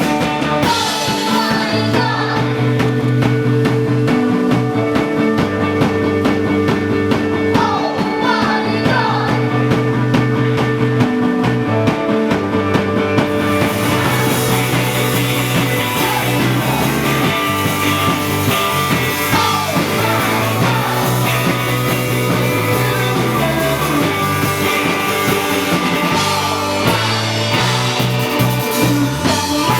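Rock music with guitar, bass, drums and a voice singing, playing steadily at a runway show; the cymbals and high end get brighter about halfway through.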